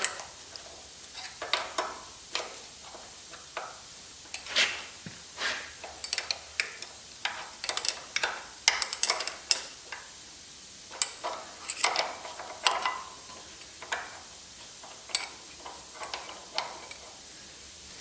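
Steel brake parts and hand tools clinking and clicking irregularly as a disc brake caliper and its mounting bracket are handled and bolted up, with a few quick runs of clicks.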